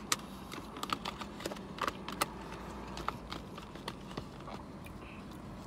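Black plastic takeout container and its lid being handled, giving irregular sharp clicks and crackles that come thick in the first three seconds and thin out after.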